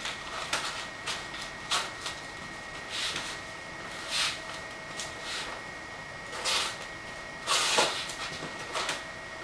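Paper rustling and crinkling in irregular bursts as a steamed bundle of hand-painted silk is unrolled from its paper wrapping by hand, the loudest crackle near the end.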